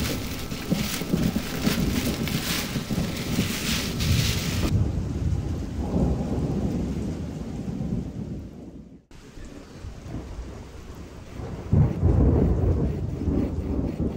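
Thunderstorm: steady rain with low rumbles of thunder. The rain's bright hiss cuts out suddenly a little under five seconds in, the sound dips almost away shortly after the middle, and a louder thunder rumble swells up near the end.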